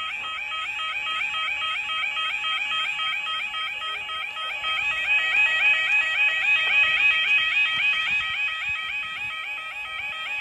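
A UK level crossing's electronic yodel alarm sounding continuously in a fast, evenly repeating warble, a little louder about halfway through.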